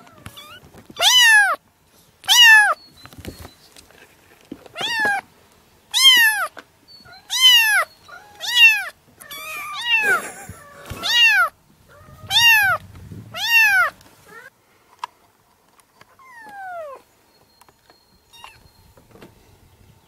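Kitten meowing over and over, about one high-pitched cry a second, each cry falling in pitch. The cries stop about two-thirds of the way through, and a few fainter ones follow.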